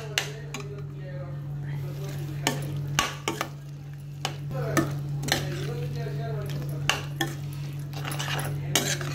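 A spoon scraping and knocking against a steel pan as beaten egg is stirred into sautéed capsicum and onion. The knocks come irregularly, about one or two a second, over a steady low hum.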